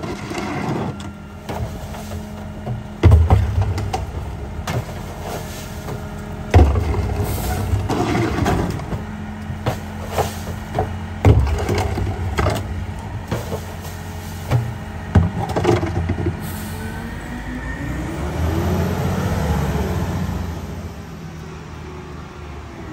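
Mack Granite garbage truck with a McNeilus rear-loader body idling while plastic yard-waste containers are banged against the hopper to empty them, four loud bangs among smaller knocks. Near the end the engine revs up and back down as the hydraulic packer cycles.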